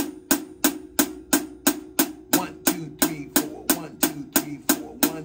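Drum-kit hi-hat struck with a drumstick in a steady, even beat, about three strokes a second.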